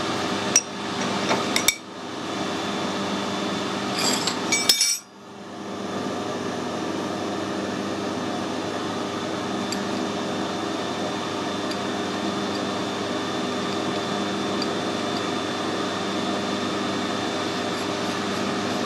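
Several sharp metal clinks and knocks in the first five seconds as a steel lead screw and a brass nut are handled at the lathe, over a steady workshop hum.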